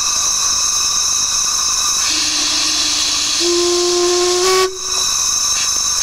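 Steam whistles on a manifold blowing over a steady hiss of escaping steam. A high-pitched whistle gives way about two seconds in to a deeper whistle, which steps up slightly in pitch. The tones break off briefly near the end, leaving the hiss.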